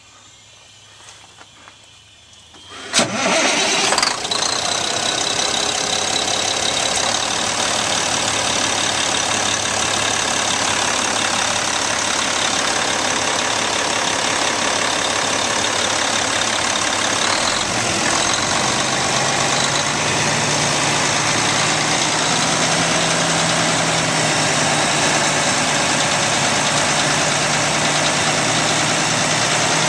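The Caterpillar C-10 inline-six diesel of a Kenworth T800 concrete mixer truck cranks and starts about three seconds in after a few faint clicks, then runs at a steady idle. A deeper steady hum joins a little past halfway.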